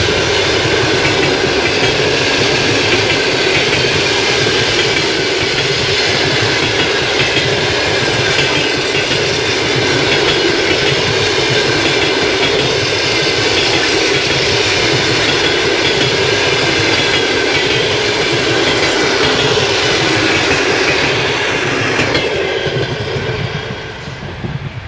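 A train running past close by: loud, steady rolling noise and clatter of steel wheels on the rails, with a faint high ringing from the wheels. It starts to die away near the end as the train passes.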